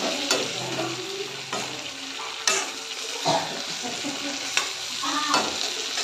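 Metal ladle scraping and knocking against a metal kadhai while pork and capsicum are stir-fried, the oil sizzling steadily underneath. The strokes come roughly once a second.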